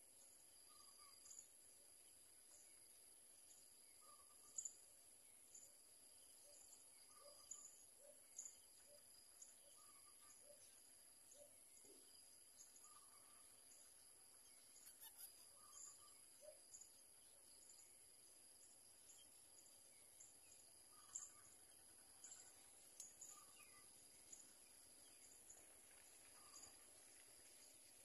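Near silence: a faint steady high-pitched tone, with scattered faint short high chirps about once a second.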